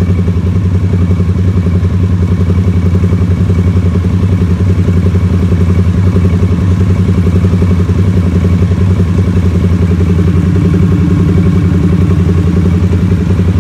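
Harley-Davidson Sportster S's Revolution Max 1250 V-twin idling steadily through a Drift Xaust full exhaust with twin stacked mufflers, with a very deep bass note.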